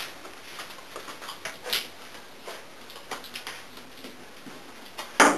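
Light, scattered clicks and taps of a small pet's claws and steps on a hard floor as it moves about at a round pet bed. A single brief, louder sound comes near the end.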